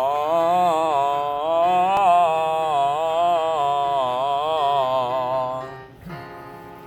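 A singer holding a long sung 'ah' vowel as a vocal exercise, the pitch swelling gently up and down. The note breaks off near the end, leaving a short quieter gap.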